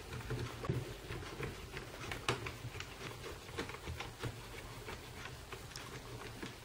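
Faint, irregular small clicks and scrapes of a screwdriver working tiny screws out of a laptop's metal keyboard-deck plate.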